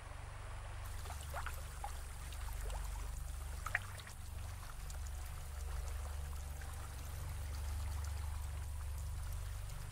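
Water trickling and pouring, with a few raindrops plinking one by one onto still water, over a steady low rumble.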